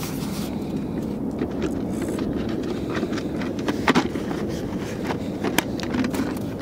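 A steady low rumble of distant highway traffic, with scattered crunches and clicks of boots shifting on desert gravel, the sharpest about four seconds in.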